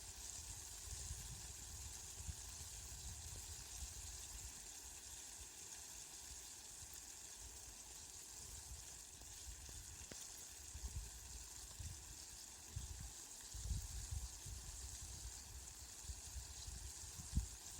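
Steady rain falling: an even, fine hiss with an uneven low rumble underneath that grows stronger in the second half.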